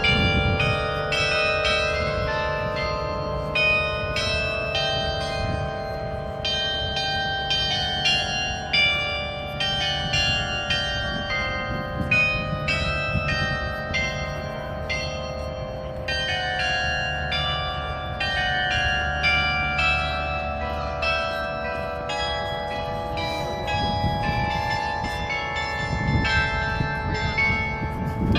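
95-bell carillon playing a tune: a steady stream of struck bell notes, each ringing on under the next, with a low steady rumble beneath that stops about three-quarters of the way through.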